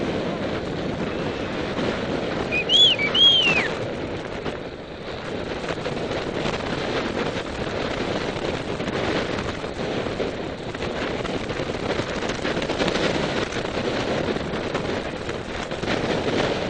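Wind buffeting the microphone as a steady rushing noise, with a few short high chirps about three seconds in.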